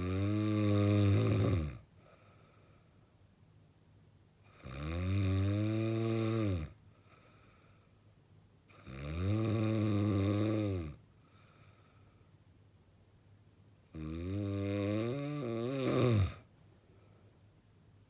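A person snoring heavily: four long, droning snores about four to five seconds apart, each about two seconds long, with its pitch rising and then falling. Faint breaths come between them, and the last snore wavers and rattles.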